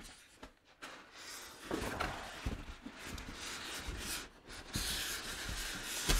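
A cardboard box being slid off a styrofoam packing case: an uneven scraping and rubbing rustle with scattered knocks, and a sharp knock at the very end.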